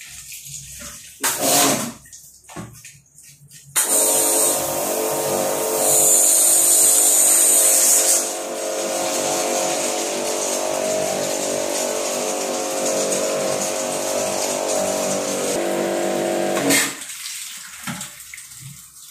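Electric pressure washer ("water jet") running and spraying water into the toilet's supply pipe to force out an air lock. After a short burst about a second and a half in, it starts about four seconds in, runs steadily with a motor hum under the hiss of the jet, loudest for a couple of seconds early on, and cuts off suddenly near the end.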